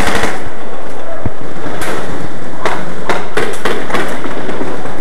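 Scattered airsoft gunfire: sharp snaps, singly and in quick clusters, starting about two seconds in and bunching up around three seconds.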